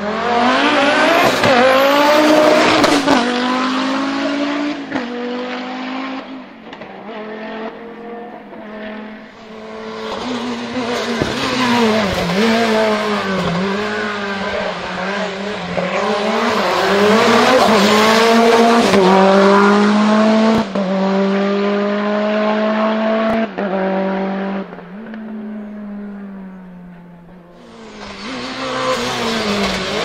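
Hillclimb race cars accelerating hard out of a hairpin one after another, including a Lancia Delta Integrale. Their engines are revved high, and the pitch climbs and drops again at each gear change. One car passes in the first nine seconds or so, the next from about ten to twenty-four seconds, and a third starts near the end.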